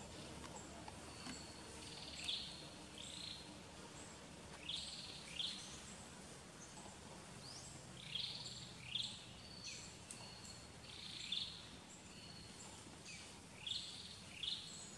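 A bird calling again and again: short falling notes, mostly in pairs, repeated every two or three seconds over faint forest background.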